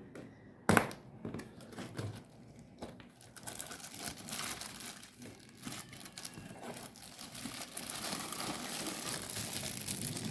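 Packaging crinkling and tearing as a gift box is unwrapped by hand. A sharp click comes a little under a second in, and the crinkling thickens and grows louder through the second half.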